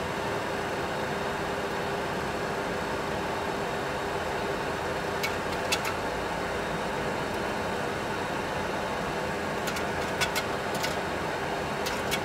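Steady engine-like hum and hiss in the cockpit of a Boeing 737 Classic full flight simulator in flight, with a faint constant tone. A few short sharp clicks come about five seconds in, around ten seconds in and near the end.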